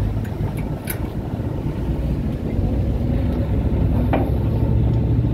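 Passenger ferry's engine running with a steady low hum as the boat berths at the pier, with a couple of sharp metallic knocks, the louder one about four seconds in.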